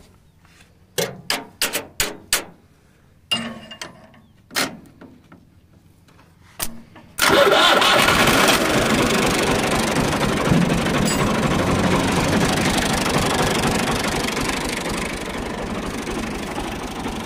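A farm tractor's diesel engine being started without its key: a string of sharp clicks as the starter circuit is worked by hand, then about seven seconds in the engine fires all at once and keeps running steadily.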